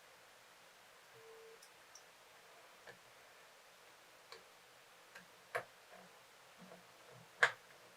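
A few light, scattered clicks and knocks of a laptop and its parts being handled on a workbench, the loudest near the end, with one short faint tone about a second in.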